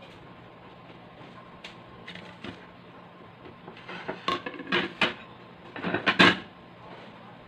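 Plates clattering on a tabletop as they are moved and set down: a few knocks and clinks about four to five seconds in, and a louder cluster about six seconds in.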